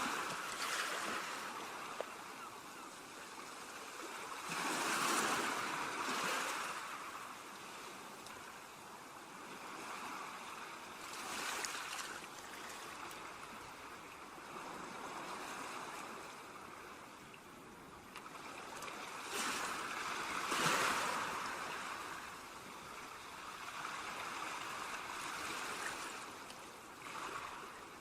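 Ocean surf breaking and washing up a beach, swelling and receding every several seconds, with the loudest wave about two-thirds of the way through.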